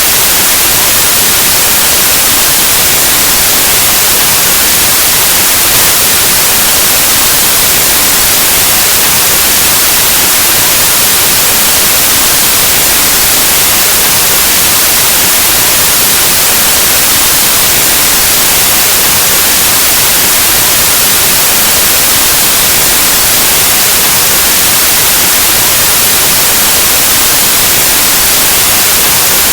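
Steady, loud white noise: an even, unchanging hiss like analog TV or radio static, with its energy spread evenly across the frequency range.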